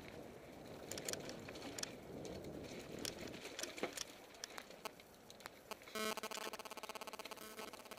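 Mountain bike rattling over loose rock on a trail, with many sharp knocks and clicks as it jolts over the stones. About six seconds in, a rapid, even ratchet buzz starts: the rear hub freewheeling as the rider coasts downhill.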